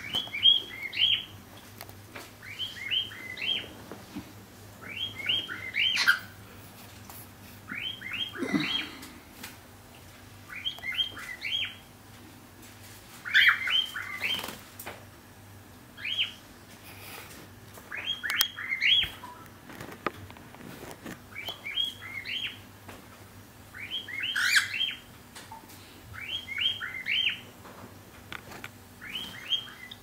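Cockatiel chirping in short bursts of three or four quick, high notes, the bursts repeating about every two seconds.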